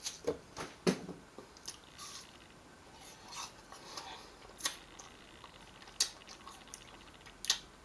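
Fruit being handled and eaten close to the microphone: scattered sharp clicks, several in the first second and a few more later, with soft wet squishy sounds between.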